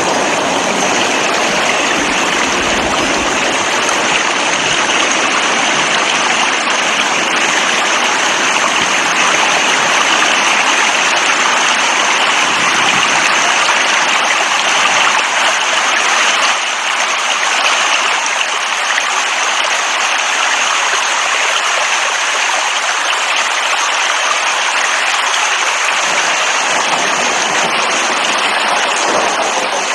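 Steady rain falling, a dense even hiss with no pauses; a deeper rumble underneath fades out about halfway through.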